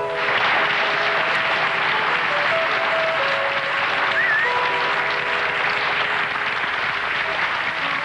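Audience applause breaks out suddenly and continues steadily over band music playing sustained notes.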